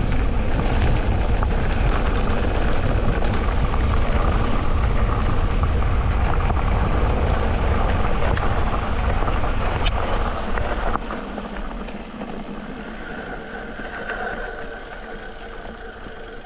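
Electric mountain bike ridden over a dirt trail: tyres rolling and the bike rattling, with a heavy low rumble and a sharp click about ten seconds in. The rumble drops away about eleven seconds in, leaving quieter rolling noise and a faint steady whine.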